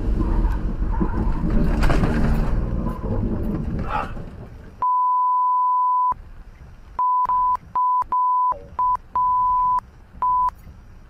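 Loud rushing road and rain noise of a car driving through heavy rain, then a single-pitch censor bleep: one long tone about halfway through, followed by a quick run of about six short bleeps, profanity being bleeped out.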